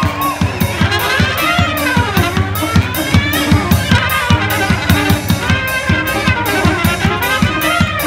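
Balkan brass band playing live: trumpet and upright brass horns carry a bending melody over a quick, steady beat on a large bass drum struck with sticks.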